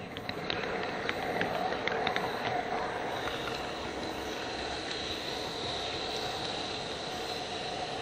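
HO-scale model train running along its track, a steady rolling rumble of metal wheels on rail with a few sharp clicks in the first couple of seconds. A faint high whine comes in about three seconds in and fades a few seconds later.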